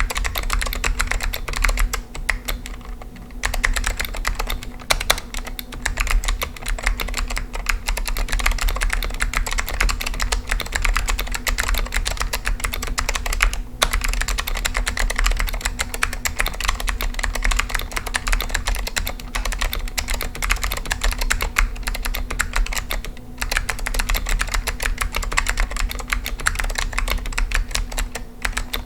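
Continuous typing on an Apple Extended Keyboard II (M3501) with stock Alps SKCM White switches: a dense stream of clicky keystrokes with a few brief pauses.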